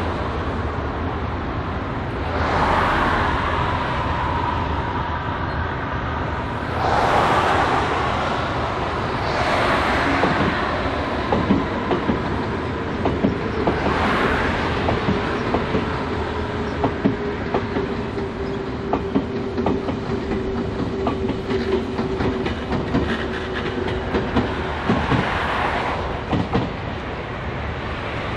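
Electric commuter train running past, its wheels clicking over rail joints, with a steady whine through the middle part.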